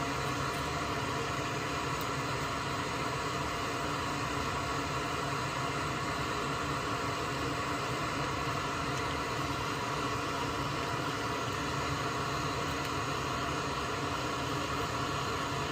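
Solder fume extractor fan running steadily: an even rushing noise with a faint hum.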